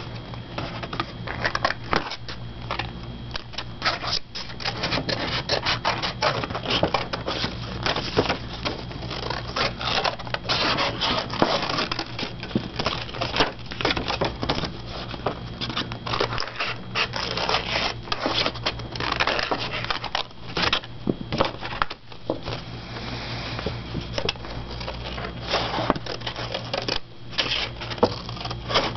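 Scissors cutting a paper plate, a fast, irregular run of snipping clicks as the blades close again and again through the card.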